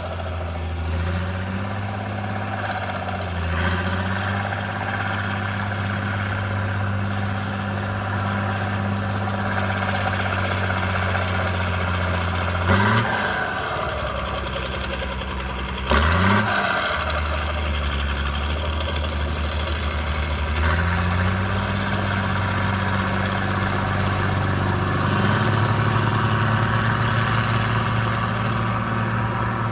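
Heavy engine of road-construction machinery running steadily, its pitch shifting now and then, with a thin high whine above it. There are two sudden loud jumps with a quick change in engine pitch, at about 13 s and 16 s.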